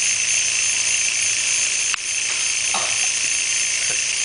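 Vex robotics motor and its gearing running flat out, spinning a stack of rubber wheels with a steady high-pitched whine. There is a single brief tick about two seconds in.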